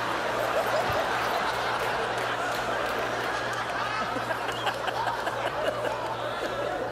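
A studio audience laughing together: many people's laughter blending into one steady wash.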